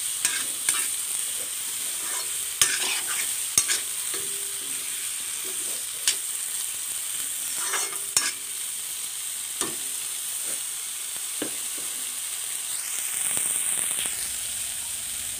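Eggplant and potato pieces sizzling in hot oil in a metal kadai as a spatula stirs them, with sharp scrapes and knocks of the spatula against the pan every second or so through the first two thirds.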